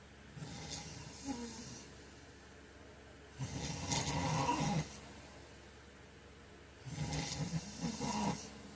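A man snoring in his sleep: three rasping snores about three and a half seconds apart, the first fainter and the other two loud, with quiet breathing between them.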